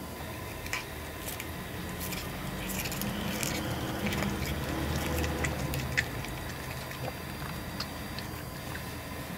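A cat biting off and chewing blades of cat grass: irregular crisp snaps and crunches over a low steady hum.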